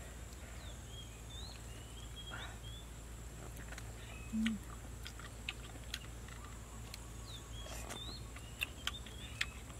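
A bird sings a short phrase of sliding whistled notes, twice, over scattered sharp clicks of people chewing and picking at cooked meat. A brief low hum comes about four and a half seconds in.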